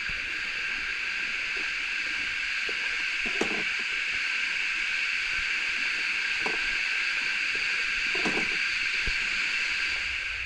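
A steady, high-pitched insect chorus drones on without a break. Faint brief sounds come about a third of the way in, around two-thirds, and again near the end.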